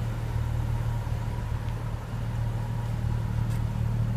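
Steady low mechanical hum with a constant drone.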